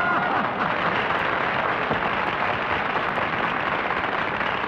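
Studio audience and panel applauding steadily, a dense even clatter of many hands clapping.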